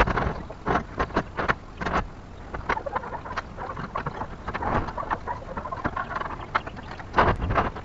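Wind rumbling on the microphone, with a string of short, sharp knocks and clanks scattered irregularly, the loudest a pair near the end.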